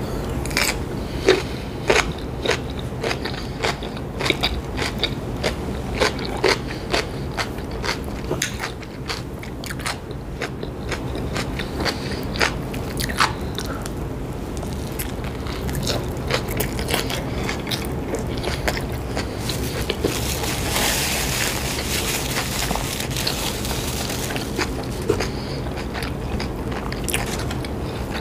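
Close-miked eating: sharp crunches and chewing as a dill pickle spear and a deli sub sandwich are bitten and chewed, with crisp crunches throughout.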